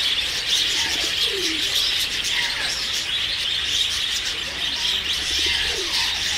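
A dense chorus of many small birds chirping and chattering together, with low, falling cooing calls from a pigeon or dove about a second in and again near the end.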